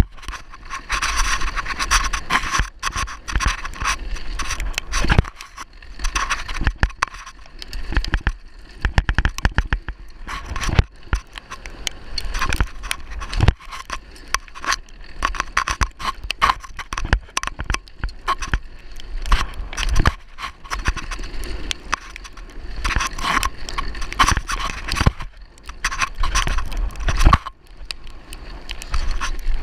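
Downhill mountain bike descending a rough, wet trail: tyres scraping and crunching over rock and gravel, with the bike knocking and rattling over bumps in frequent irregular clatters. The bike is ridden without a chain.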